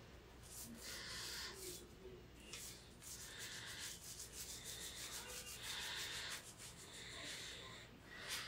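Faint scraping of a razor drawn through shaving foam and stubble, in a series of short strokes about a second apart.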